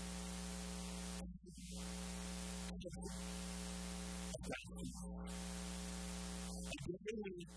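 Steady electrical mains hum with hiss, cut off briefly a few times, with short snatches of quiet speech.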